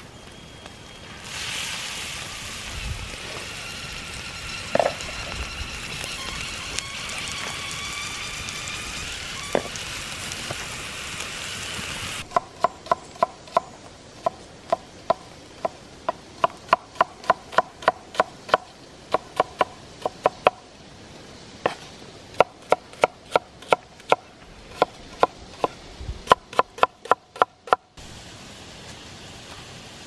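Lamb meat and offal sizzling on a hot saj over a wood fire, then a knife chopping onions on a plastic cutting board in quick runs of sharp chops, about three a second with short pauses. The chopping is the loudest sound and stops suddenly near the end.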